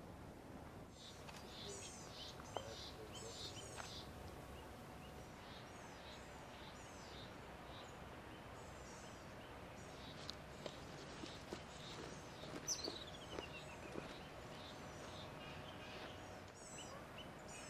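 Songbirds chirping and twittering faintly in short high series over a steady background hiss, with one long falling whistle a little past the middle.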